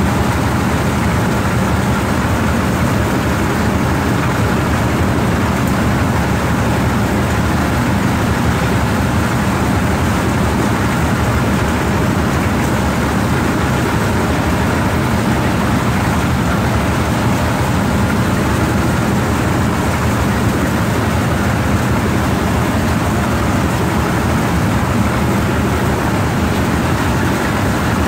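Motorised rice threshing machine running steadily as bundles of rice stalks are fed into its drum to strip the grain from the straw. A constant loud machine noise with no let-up.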